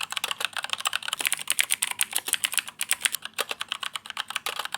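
Fast, continuous typing on a Keychron K2 mechanical keyboard with brown (tactile, non-clicky) switches: a rapid, steady stream of key clacks, many strokes a second.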